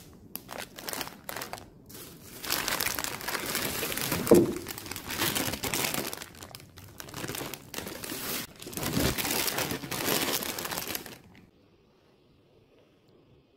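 Plastic bags of frozen vegetables and frozen French fries crinkling loudly as they are handled, in uneven surges. The crinkling stops suddenly about eleven seconds in.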